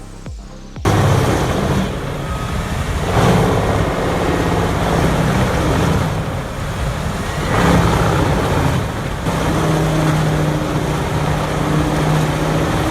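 Large diesel-powered horizontal grinder (HG6800TX) running hard: a deep, steady engine drone under a loud, noisy grinding wash, starting abruptly about a second in.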